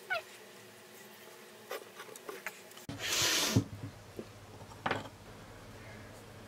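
Wooden toy car parts being handled on a workbench: a short scraping rub about three seconds in and a sharp knock about five seconds in, with a brief falling squeak right at the start.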